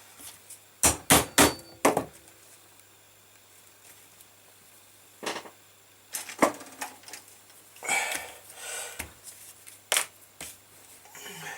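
A mallet striking a pricking iron to punch stitching holes in leather: four quick sharp knocks about a second in, then a few more spaced knocks, with some handling noise between.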